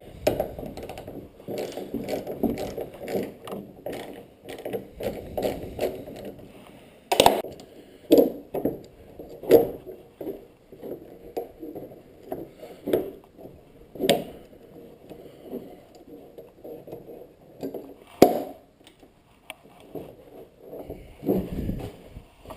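Hand ratchet wrench clicking as bolts are worked loose: fast runs of ratcheting clicks for the first several seconds, then slower separate strokes with a few sharper metal knocks.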